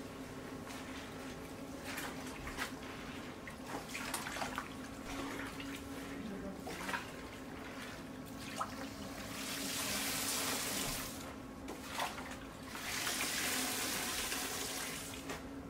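Gloved hands squelching and sloshing through shredded cabbage in a tub of red liquid. Twice it turns into a longer splashing hiss, the second as a handful is lifted and the liquid streams and drips back into the tub. A steady low hum runs underneath.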